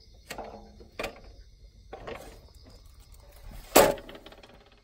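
Several scuffing steps and knocks on dry ground and twig litter, with a sharp louder click about four seconds in, over a faint steady high hiss.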